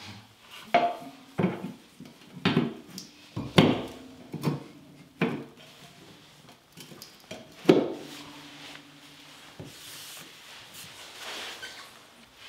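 Hard objects knocking and clinking, about eight sharp, irregular strikes with a short ring after some of them, then quieter rubbing and shuffling near the end.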